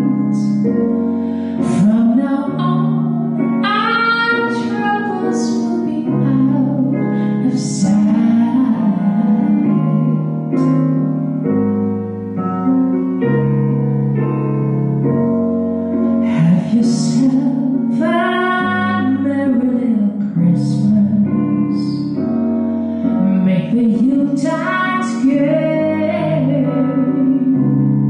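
A woman singing a song close into a handheld microphone over an accompaniment of sustained keyboard chords, her held notes wavering with vibrato. The voice drops out for a short instrumental passage about halfway through, then comes back in.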